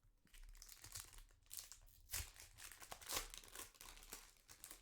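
Trading-card pack wrapper crinkling and tearing as it is handled and opened, in irregular bursts, the loudest about two and three seconds in.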